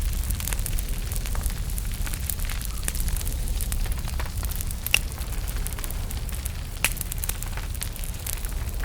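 Small wood fire burning in a fireplace: a steady low rumble of flames with irregular crackles and pops, the sharpest about five and seven seconds in.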